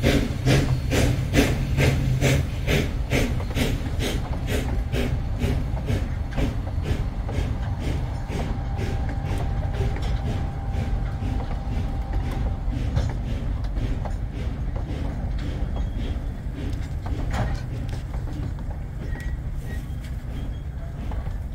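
Durango & Silverton narrow-gauge steam train running, its exhaust beating evenly about three times a second and fading away, over a steady rumble of the wheels. A faint steady squeal runs from about eight to thirteen seconds in.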